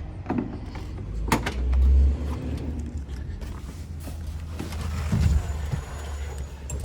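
Small-block Chevy 350 V8 starting up, then settling into a steady idle.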